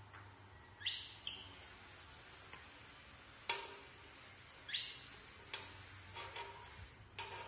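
Baby monkeys giving two short, high squeals that sweep sharply up in pitch, about a second in and again past the middle. Between them come light clinks of a metal spoon against the egg cup and grill pan, each with a brief ring.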